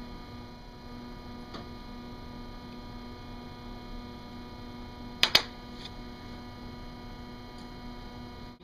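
Steady electrical mains hum, with two sharp clicks in quick succession about five seconds in.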